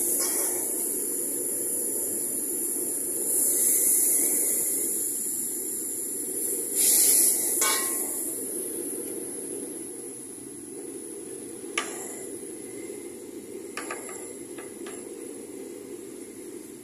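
Kwetiau sizzling and steaming in a steel wok over a burner, with a steady low rumble under a high hiss. A metal ladle clanks against the wok several times, the sharpest knock about twelve seconds in. The sizzle grows quieter toward the end.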